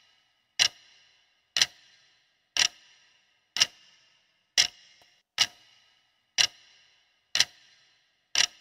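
Clock-tick sound effect of a countdown timer: sharp ticks about once a second, each with a short ring, nine in all, marking off the seconds of the countdown.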